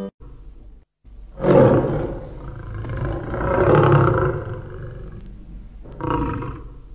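Lion roar sound effect: one long, rough roar starting about a second and a half in, then a shorter roar near the end.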